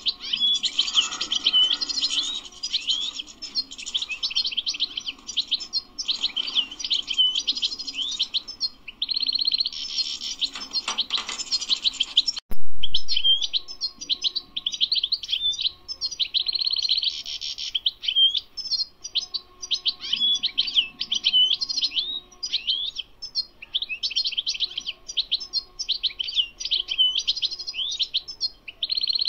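European goldfinch singing a long, fast run of twittering and buzzy notes with hardly a pause. About twelve and a half seconds in the song breaks briefly at a single sharp click.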